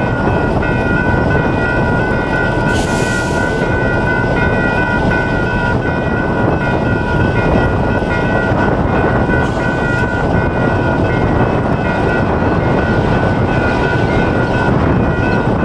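Railroad crossing's two electronic warning bells, a General Signals type 3 and a WCH type 4, ringing continuously while the crossing is activated for an approaching train, over a heavy low rush of wind on the microphone.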